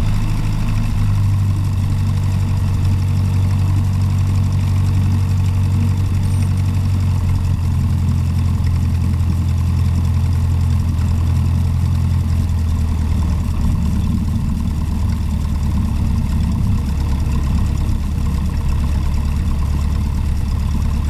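Cessna's piston engine and propeller running at low power while taxiing, heard inside the cockpit as a steady low drone. Its tone shifts slightly about a second in and again around twelve seconds.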